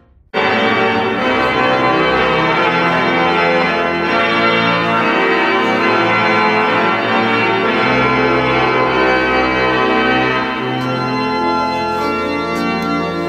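Church organ playing full, held chords that change slowly, coming in abruptly about a third of a second in.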